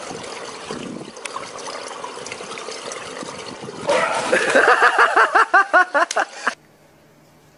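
Swimming-pool water splashing and lapping, then a big splash as a man bursts up out of the pool. A loud voice follows in quick rhythmic bursts for about two and a half seconds. The sound then cuts off abruptly to a faint low hum.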